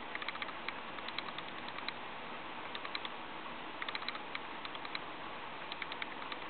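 Bursts of quick, light clicks, several at a time with short pauses between, over a steady hiss.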